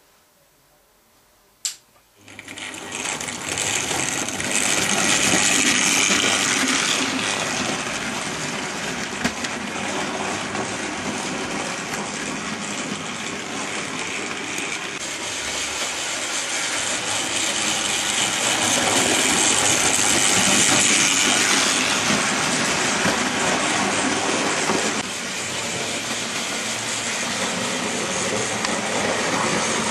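A single click, then an OO gauge model steam tank locomotive's electric motor and wheels running on the track: a steady, loud whirring buzz as it pulls away.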